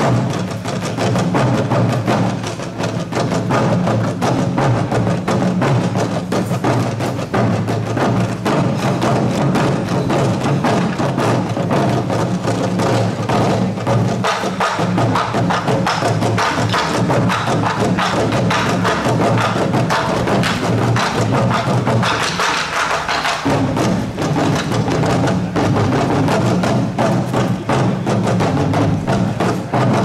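Ogomu five-drum dance music: Korean barrel drums (buk) struck in a fast, dense rhythm over traditional Korean musical accompaniment. The bass briefly drops out about two-thirds of the way through.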